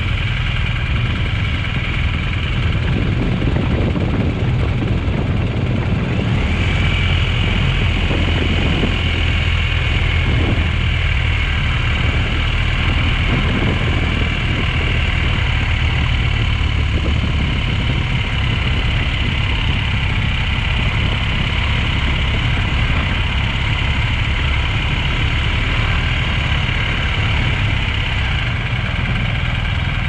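GS adventure motorcycle's engine running steadily under way, with tyre noise on a dirt and gravel road; the engine note shifts and gets fuller about six seconds in.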